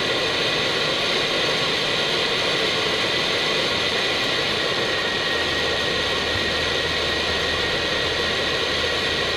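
Cockpit noise of an Airbus A319 on approach: a steady rush of airflow and engine noise with a thin steady tone. A low hum joins about halfway through.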